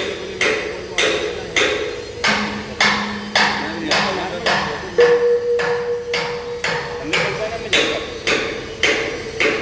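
Hammer blows driving keys (wedges) at the base of a steel H-beam column to align and fit it, struck in a steady rhythm of about two a second.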